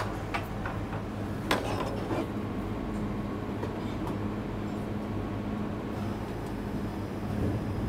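Steady low hum of commercial kitchen equipment, with a few light clicks and taps of utensils and a metal tray, the sharpest about a second and a half in.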